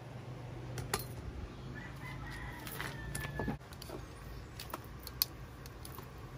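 A rooster crowing once, a long call about two seconds in, with a few sharp clicks around it.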